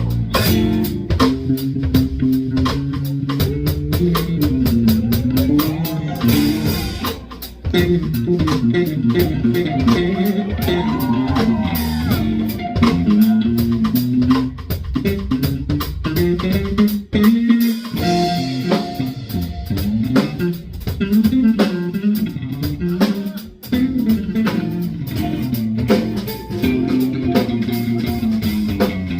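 Live band music: guitar and bass guitar playing over a drum kit, with a melody line moving throughout.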